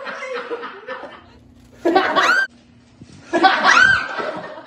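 A recorded goat bleat, a high, arching scream played back twice in identical form, about two seconds in and again at three and a half seconds, while people laugh.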